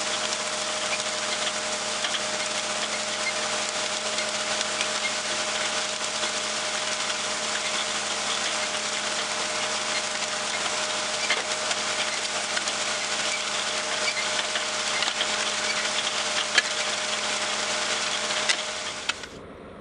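Tractor engine running steadily while pulling a John Deere RWA disc harrow through the field, with scattered clicks and rattles. The sound cuts off abruptly near the end.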